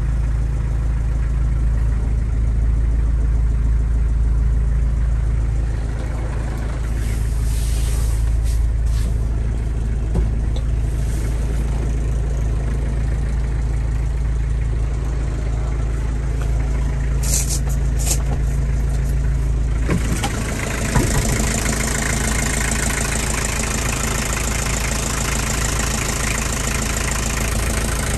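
Mazda Bongo truck's 2.2-litre R2 four-cylinder diesel engine idling steadily. About twenty seconds in the sound turns brighter and hissier, with a few light knocks.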